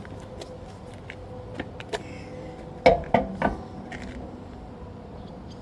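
Scattered clicks, then a quick run of three or four loud knocks about three seconds in, from the spare wheel and its lug bolts being handled and set against the car's hub.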